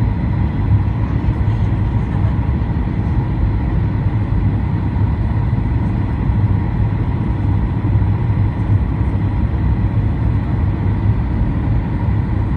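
Steady cabin noise inside a Boeing 737-800 on approach: a low, even rumble of airflow and its CFM56 engines, with a few faint steady high tones above it.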